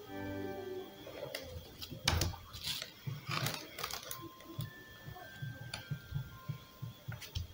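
Small irregular clicks and rustles of a metal drawing compass being handled and adjusted, with a crinkle of plastic sheeting, loudest about two seconds in. Faint background music plays under it.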